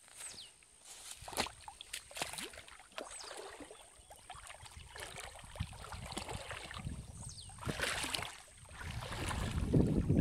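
River water splashing and sloshing in irregular strokes, with a few high falling whistles over it and a louder, deeper rush of noise near the end.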